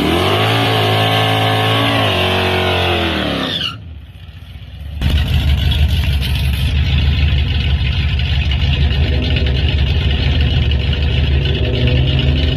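Cammed LT1 V8 of a fourth-gen Camaro Z28 held at raised revs for a few seconds, then let back down. After a short quieter break, the engine runs loud and low with an uneven, pulsing idle, and the revs start to climb again right at the end.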